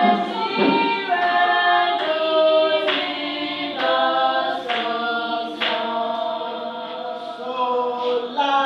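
Students singing together a cappella, several voices without accompaniment, moving through a series of long held notes.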